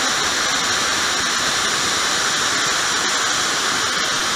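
Dyson Supersonic hair dryer running with its diffuser attached: a steady rush of air that holds an even level throughout.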